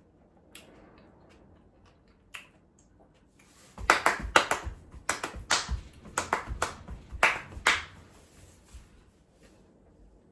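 Close-miked chewing of food: a run of sharp, wet crunches and mouth smacks about three a second, starting about four seconds in and thinning out near the end, with a few single clicks before.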